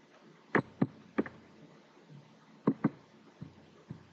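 Computer mouse button clicking: a few sharp clicks, some in quick pairs, then two fainter clicks near the end.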